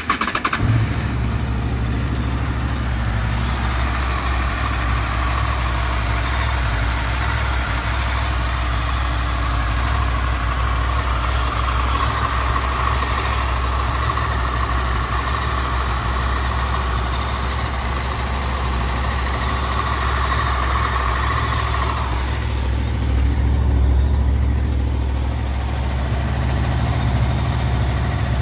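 Honda VFR800 VTEC's V4 engine starting and then idling steadily from cold. About 22 seconds in, the higher part of the sound drops away, and the engine gets slightly louder briefly.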